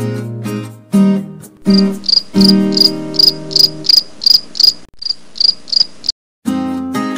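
Cricket chirping, a short high chirp about three times a second, that starts a couple of seconds in and stops about six seconds in, over acoustic guitar music.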